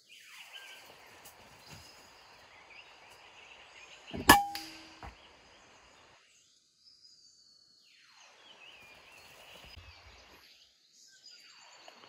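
A single shot from a PCP air rifle about four seconds in: a sharp crack with a short ring after it. Faint bird chirps sound in the background.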